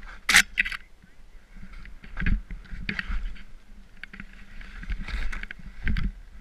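Skis swishing and scraping through deep powder snow in a run of irregular turns, with a sharp burst of snow noise about a third of a second in and more near two, three, five and six seconds.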